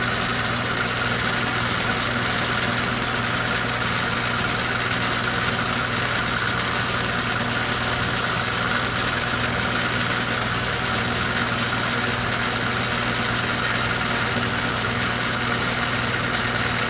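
A machine tool's electric motor running steadily with a constant hum, with a few small ticks along the way.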